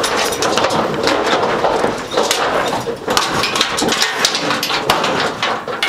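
Cattle loading into a livestock semi-trailer: hooves clattering and knocking on the trailer floor and walls, with many quick bangs over a steady rumbling noise.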